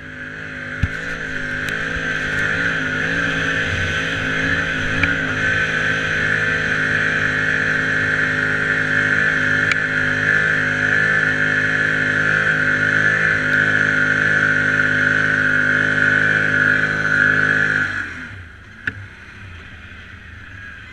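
Quad bike's engine running hard at high, steady revs under full load up a steep sand dune, its pitch wavering over the first few seconds and then holding. About eighteen seconds in the throttle is released and the engine sound drops away abruptly, with a sharp knock shortly after.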